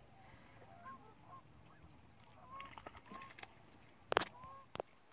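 Distant sandhill cranes calling: many short, faint calls that rise and fall, overlapping. Two sharp clicks about four seconds in are the loudest sounds.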